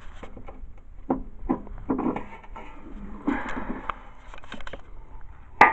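Scattered knocks and clatter of things being handled, with a scraping rustle about three seconds in and a loud sharp click near the end.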